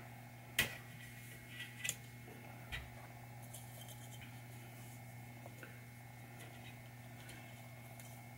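Metal trim strip and glass of a pinball back glass being handled: one sharp click about half a second in, a few lighter clicks over the next two seconds, then faint handling ticks over a steady low hum.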